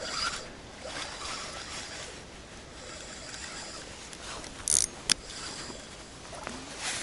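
Spinning reel being wound, a faint high whirring over steady outdoor noise, with a short scrape and then a sharp click about five seconds in.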